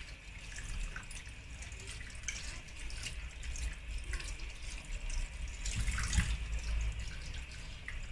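Tap water running into a sink while mackerel pieces are washed by hand, with small splashes and sloshing throughout and a louder bout of splashing about six seconds in.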